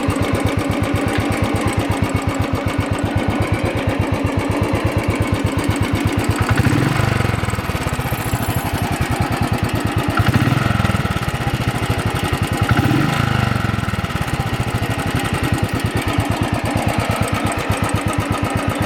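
Royal Enfield Thunderbird single-cylinder engine idling with an even beat, revved up briefly three times in the middle. It carries a tappet noise that the owner puts down to the rocker arm beating, still there after a new tappet rod and hydraulic unit, and due to be cured by adjusting the rocker arm.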